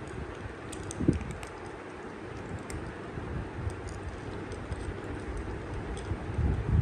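Two kittens crunching dry kibble from ceramic bowls: scattered small crisp clicks, with a couple of dull bumps about a second in and near the end.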